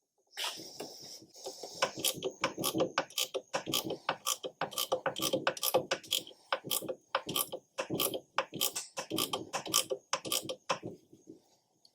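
Ratchet wrench clicking in short regular strokes, about three clicks a second, as the belt tensioner bolt is wound in to tighten the drive belt.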